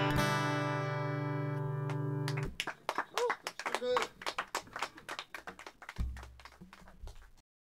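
Acoustic guitar's final strummed chord ringing out, stopped abruptly about two and a half seconds in, followed by scattered clapping that thins out and ends just before the close.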